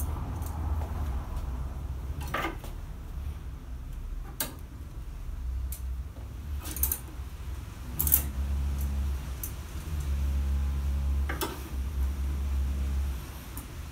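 Plastic clothes hangers clicking and clacking against a clothes rail as garments are handled and hung up, several sharp clicks spread out, over a steady low rumble.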